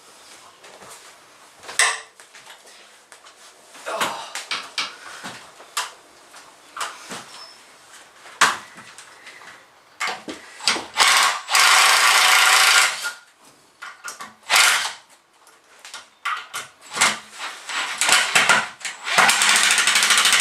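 Power drill backing Robertson screws out of a wooden stud, running in several bursts of a second or two through the second half, with knocks and clatter between.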